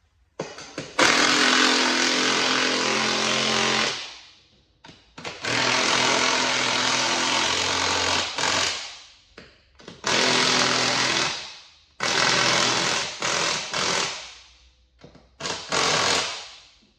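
Impact wrench hammering nuts down onto the seat-support studs in five runs of one to three seconds each, with short pauses between them.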